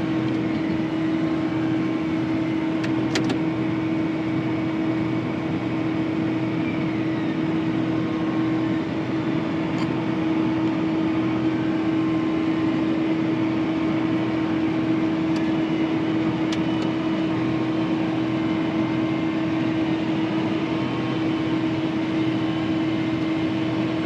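Tractor and Kinze grain cart unloading corn through the cart's auger, heard from inside the tractor cab: a steady running drone with one strong constant hum. A few faint clicks are heard along the way.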